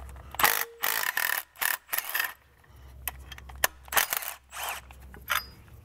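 Ratchet loosening the 15 mm bolts that hold the top engine mount cover: a string of short ratcheting and scraping bursts, close together in the first couple of seconds, then sparser.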